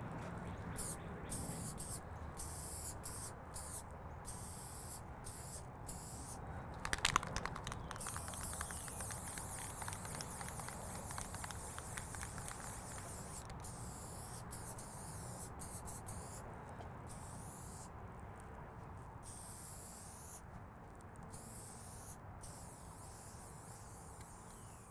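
Aerosol spray-paint can hissing in long bursts with many brief breaks, and a short run of clicks about seven seconds in.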